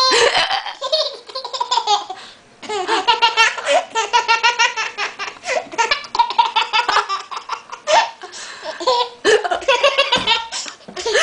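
A person laughing hard in long runs of quick 'ha-ha' pulses, with short breaks for breath between them.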